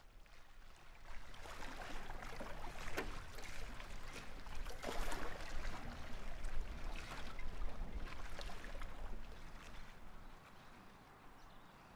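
Lake water sloshing and trickling, with a couple of brief splashes, fading away near the end.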